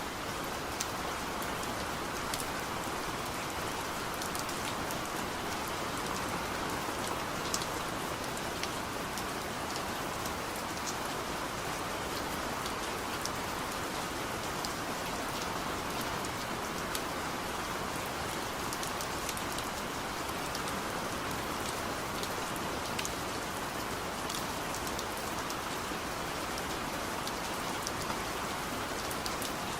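Steady rain falling on a surface, with individual drops ticking sharply now and then.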